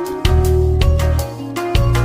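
Background music with a steady beat, bass and plucked guitar-like notes.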